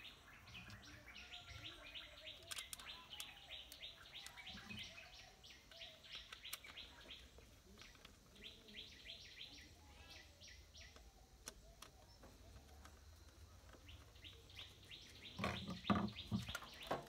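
Birds chirping in quick runs of short, evenly spaced chirps, repeating every few seconds, faint. A few louder knocks sound near the end.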